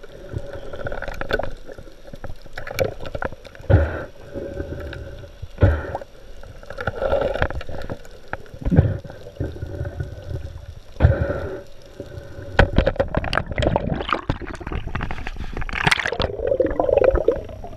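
Muffled underwater gurgling and rushing water around a diver's camera, broken by irregular low thumps every few seconds.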